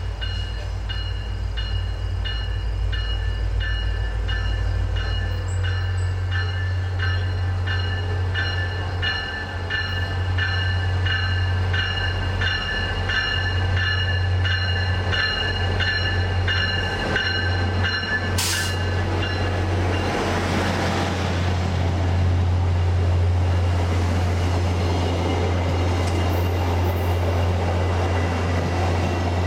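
VIA Rail F40PH-2 diesel locomotive passing with its engine running in a steady low drone, while a bell rings in an even, repeating rhythm. The bell stops about two-thirds of the way through, just after a sharp click, and the rolling rumble of the LRC passenger cars going by takes over.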